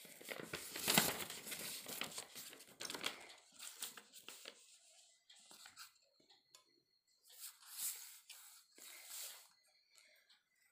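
Sheets of paper rustling and sliding as they are handled on a table. The rustling runs for the first few seconds, loudest about a second in, and comes back in two shorter bursts near the end.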